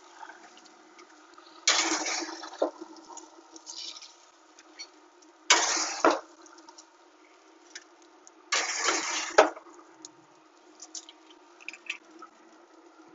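Metal spatula scraping across the steel grates of a pellet grill three times, about a second each, as chicken wings are scooped off onto a foil-lined tray, with a few light clicks between scrapes. A steady hum runs underneath.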